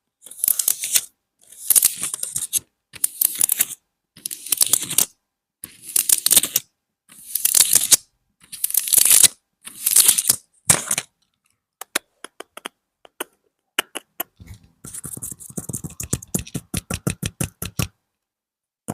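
Close-up ASMR scratching: about eight scratching strokes, roughly one every second and a half. After that come a few scattered light taps, then, about fifteen seconds in, a fast run of tapping at several taps a second.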